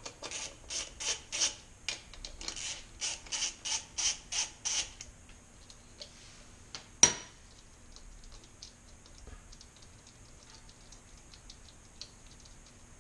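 Hand ratchet with a 10 mm socket backing out bolts: a quick run of ratcheting strokes, about three or four a second, for the first five seconds. About seven seconds in there is a single sharp metallic clink, followed by faint small ticks.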